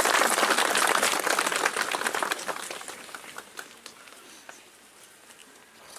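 Audience applauding at the end of a song, the clapping fading away over about three seconds to a few last scattered claps.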